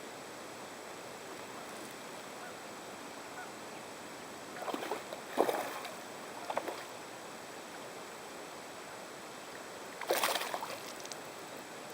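Short splashes of water at a kayak: a cluster of three a little past halfway, another about two seconds before the end, over a steady faint hiss.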